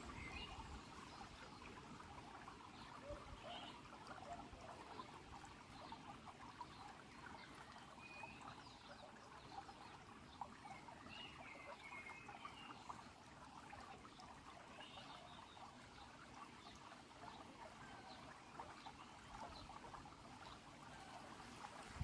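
Faint, steady babble and trickle of a shallow stream running over pebbles, with a few short chirps now and then.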